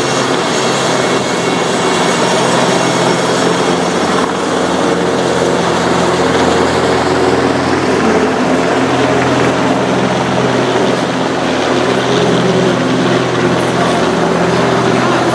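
Military helicopters, an NH90 and a Westland Lynx, flying low past: loud, steady rotor and turbine noise with a constant low hum.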